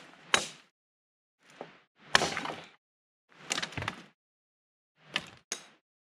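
Dead branches being chopped with a blade and snapped by hand: a series of separate sharp whacks and cracks with short pauses between, the longest and loudest a splintering crack about two seconds in.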